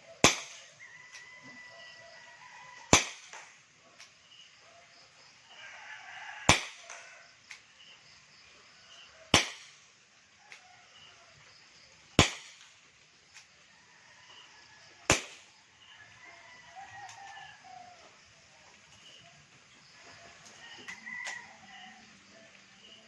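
CO2-powered airsoft revolver firing six single shots, each a sharp crack, spaced about three seconds apart.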